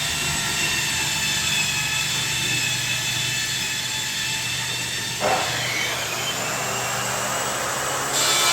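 A steady whine from a running machine on a construction site, several held tones at once. About five seconds in, a louder rush of noise starts and a tone falls in pitch, and a high hiss joins near the end.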